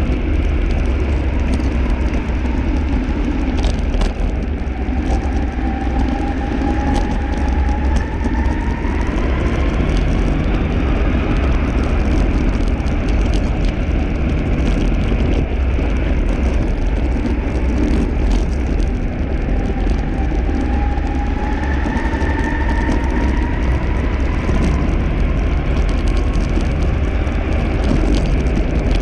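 Electric mountainboard riding fast on asphalt: a steady rumble and rush of the pneumatic tyres and air at speed. Twice, about five seconds in and again near twenty seconds, the twin 6374 motors and their gear drive whine, rising in pitch as the board speeds up.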